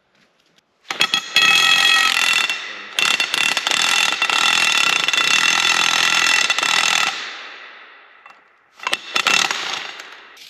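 Cordless impact wrench hammering on the piston retaining nut of a hydraulic cylinder rod. It starts about a second in and runs in two long bursts with a short break between them, fades out, then gives one short burst near the end.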